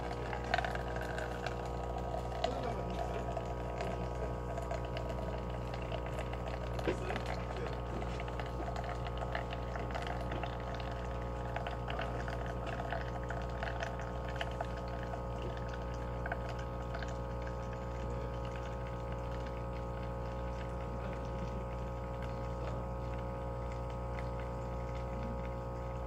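Scishare capsule coffee machine brewing: its pump hums steadily while a thin stream of coffee pours into a paper cup, with small irregular splashing and crackling that is busier in the first half.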